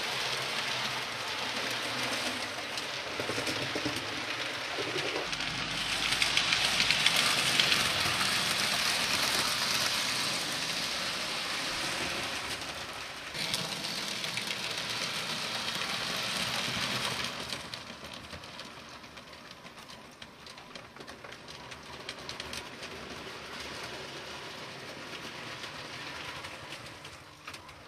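HO-scale model trains running along the track, a steady rattle of wheels and motor. It is loudest about a quarter of the way in and drops away about two-thirds through as the train moves off.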